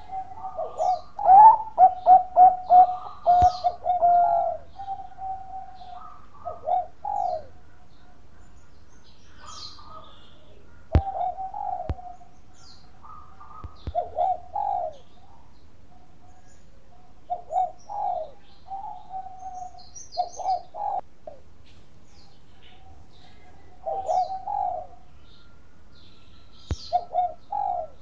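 Zebra dove of the Bangkok perkutut line singing its cooing song: a quick run of short staccato notes that runs into a held coo, given in phrases every few seconds with pauses between. The longest and loudest phrase comes about one to four seconds in.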